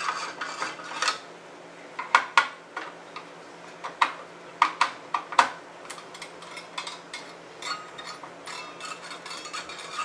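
Phillips screwdriver working the heat sink's screws in an opened computer case: sharp metallic clicks and clinks, a cluster of them between about two and five and a half seconds in, with lighter ticking and rattling of metal parts around them.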